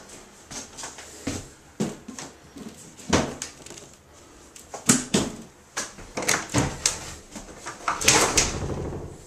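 Irregular clicks and knocks of a wooden bathroom wall cabinet being opened and handled, with a denser run of knocking and rattling near the end.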